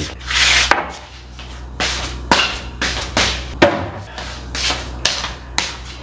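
A hand and a plastic tub rubbing and scraping across a round wooden board, in a string of short brushing strokes about one or two a second, with one sharper knock about three and a half seconds in.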